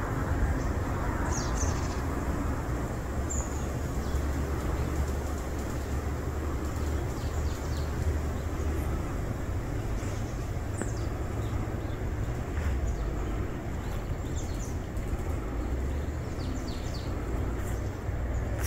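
Outdoor ambience: a steady low rumble, such as wind on the microphone or distant traffic, with a few faint, short bird chirps scattered through it.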